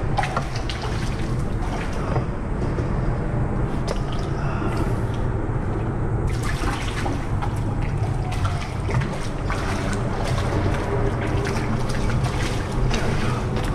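Water lapping and trickling against a kayak hull over a steady low rumble, with scattered small clicks.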